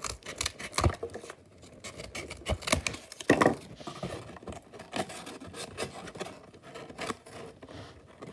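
Scissors cutting thin cardboard: a run of irregular snips and scrapes, with the card rubbing as it is handled, the loudest snip a little over three seconds in.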